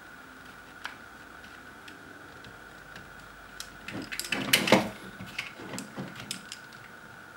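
A precision screwdriver and fingers clicking and scraping against the plastic housing and wiring of an opened shaver cleaning station. A short cluster of clicks and scrapes comes about four seconds in, then a few light ticks. A faint steady high whine sits underneath.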